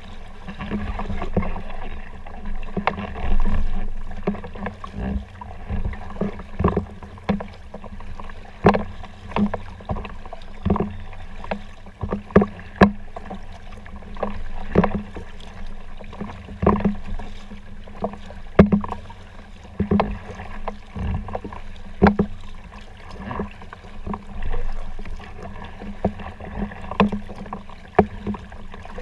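Kayak paddling: the paddle blades dipping and pulling through the water in a steady rhythm, with a sharp splash or knock about once a second over continuous water noise.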